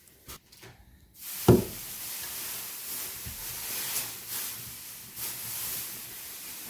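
A single sharp knock of hard parts about a second and a half in, then a steady hiss with a few faint taps.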